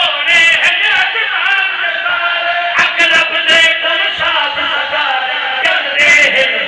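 A man's loud, impassioned chanted recitation of a religious poem into a microphone, with long held notes, and other men's voices joining in.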